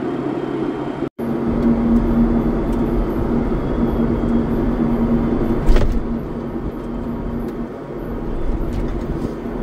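Vehicle engine running steadily, a continuous drone with a low rumble. It cuts out for an instant about a second in and resumes with a steady hum, and there is a single brief knock about halfway through.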